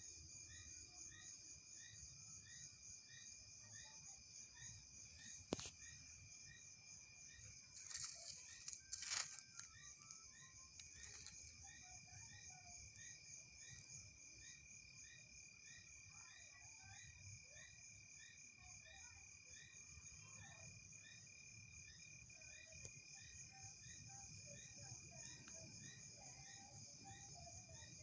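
Faint night-time insect chorus of crickets chirping steadily: one insect holds a constant high trill while others pulse about twice a second. A sharp click sounds about a fifth of the way in, followed by a short burst of rustling and knocks a few seconds later.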